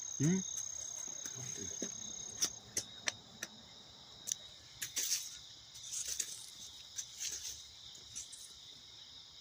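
Night insects trilling steadily in two continuous high-pitched tones, the higher one stopping about two and a half seconds in, with scattered short clicks and rustles throughout.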